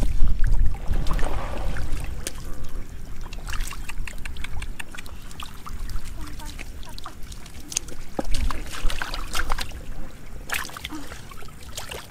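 Hands sloshing and splashing in shallow muddy water as fish are grabbed and flap about, with irregular small splashes and slaps, over a low rumble that is loudest in the first couple of seconds.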